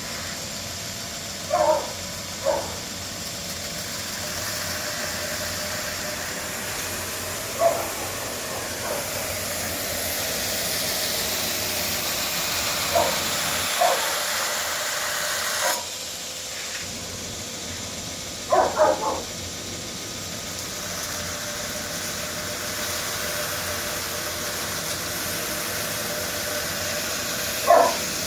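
12-inch double-wheel knife grinder running through a test grind: a steady hiss that grows brighter in the middle and drops away suddenly about sixteen seconds in. Short, sharp yelps cut in over it about six times.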